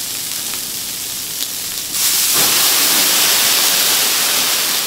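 Flambé on a hot teppanyaki griddle: a loud, steady sizzling hiss that grows louder and fuller about two seconds in, as a tall column of flame flares up off the iron.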